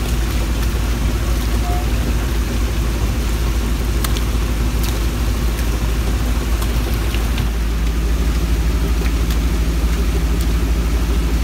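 An engine idling steadily: a continuous low hum with a few scattered clicks and knocks, its tone shifting slightly about seven seconds in.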